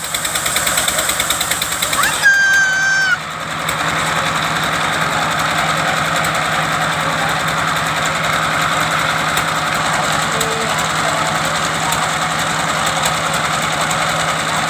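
Engine of a wood-cutting machine running steadily with a rapid, even knocking beat. About two seconds in comes a high, slightly falling tone lasting about a second.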